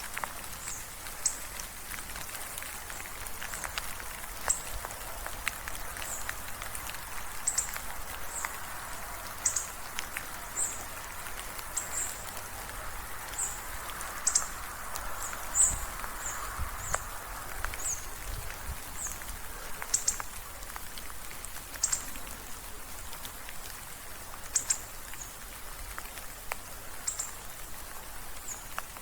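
Gentle rain falling in a steady soft patter with scattered louder drops, while a short high chirp repeats about once a second.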